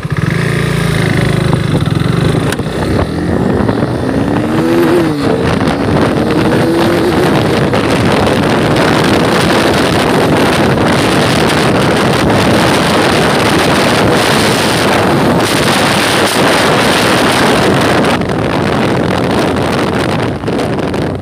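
KTM RC 390's single-cylinder engine accelerating hard, its pitch climbing through a couple of gear changes in the first several seconds. It is then largely covered by loud wind rush on the microphone at speed, which eases a little near the end.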